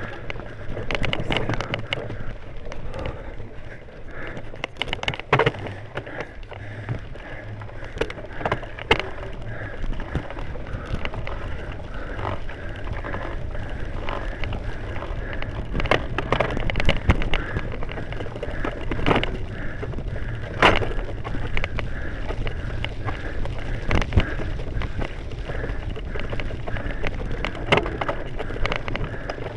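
Bicycle ridden over a rough, leaf-covered dirt trail: steady rolling noise from the tyres, with frequent irregular knocks and rattles as the bike hits bumps.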